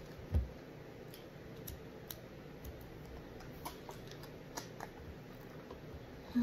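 Faint scattered clicks and crackles of a plastic water bottle being handled and drunk from, with a soft thump about half a second in.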